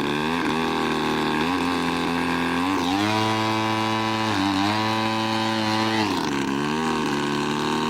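Engine of a large radio-controlled airplane running with a buzzing, many-toned note. The pitch rises about three seconds in, holds, and falls again near the end.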